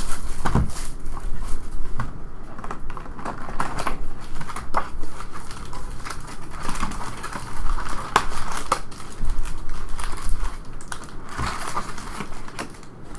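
Crinkling and rustling of trading-card packaging being torn open and handled, with scattered sharp clicks and crackles.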